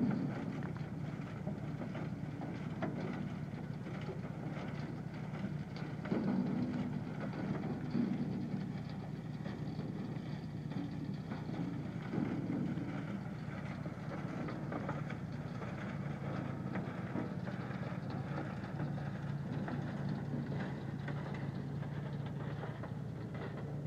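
Gold trommel wash plant running: a steady engine hum under the clatter of material turning in the rotating screen drum, with scattered knocks and rattles and a louder knock right at the start.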